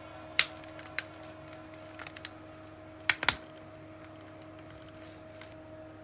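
Several sharp clicks and taps over a steady low hum: single ones about half a second and a second in, a small cluster around two seconds, and the loudest, a close pair, a little past three seconds in.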